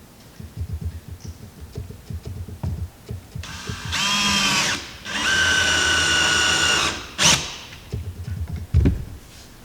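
Electric drill driving screws into a wooden boat deck: two runs of the motor, each about a second and a half, rising in pitch as it spins up and then holding steady. A sharp click follows near the end.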